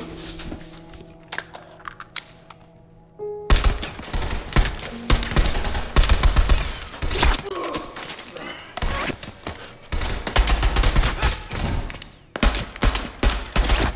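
Automatic rifle fire in rapid bursts, a sustained firefight, starting about three and a half seconds in with a short break near the end. Background music under it.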